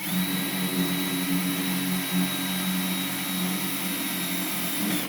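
Power drill driving a self-drilling screw, its motor running steadily, with a whine that winds up at the start and drops as it stops at the end.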